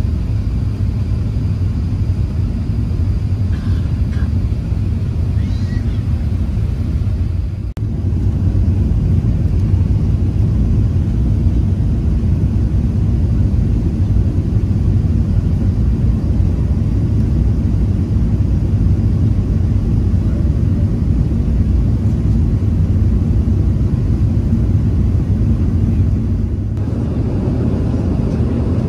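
Steady low rumble of an Airbus A380 in flight, heard from inside the economy cabin: engine and airflow noise. It breaks off for a moment about eight seconds in and shifts slightly near the end.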